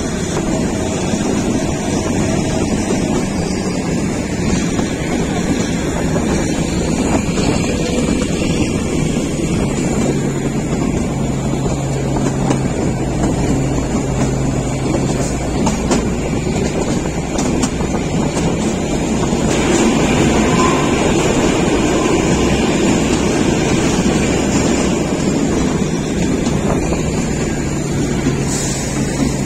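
Steady running noise of a moving narrow-gauge toy train, a little louder about two-thirds of the way through.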